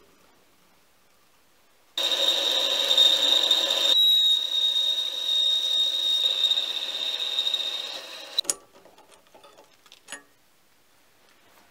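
Mini lathe boring out a hole in a part held in a four-jaw chuck: a sudden cutting sound with a steady high-pitched ringing tone that lasts about six seconds, then fades. Near the end come a couple of sharp metallic clicks as the part is handled in the chuck.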